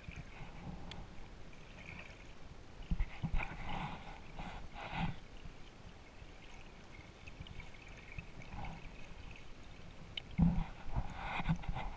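Muffled underwater gurgling and bubbling heard through a submerged camera, with low knocks, coming in two busier spells, about three seconds in and again near the end.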